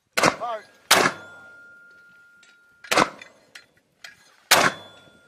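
Mortar firing: four sharp blasts in a few seconds, the second followed by a thin ringing tone that fades over about two seconds.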